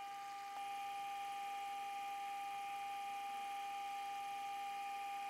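Mini lathe running at low speed, giving a steady high whine from its motor drive, with a light tick about half a second in.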